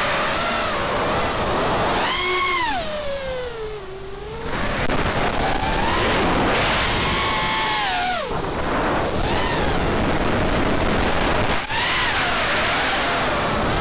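FPV racing quadcopter's brushless motors and propellers whining, the pitch rising and falling with throttle: it drops and quietens about two seconds in, climbs back about four seconds later, and dips briefly near the end. Heard from the onboard camera under a steady rush of wind noise.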